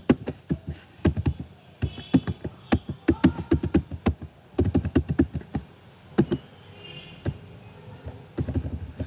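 Typing on a computer keyboard: quick, irregular key clicks in short runs with brief pauses, thinning out in the second half.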